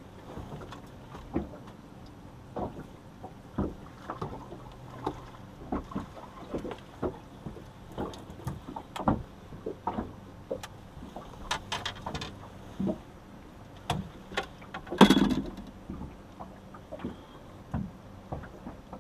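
Small waves slapping against a boat's hull in irregular short knocks. There is one much louder knock about fifteen seconds in.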